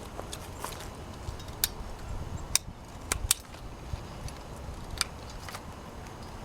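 Ratchet hand pruners clicking several times as they work through a peach branch, the clicks spaced unevenly, under a low wind rumble on the microphone.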